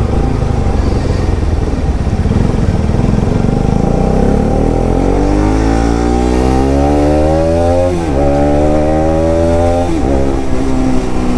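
Bajaj Pulsar RS200's single-cylinder engine with an aftermarket exhaust, accelerating hard. From about four seconds in the revs climb steadily, drop sharply at an upshift about eight seconds in, climb again, and drop at a second upshift about ten seconds in.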